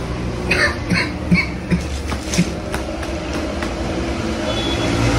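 Steady low vehicle rumble of engine and road noise, with a few short vocal sounds in the first couple of seconds.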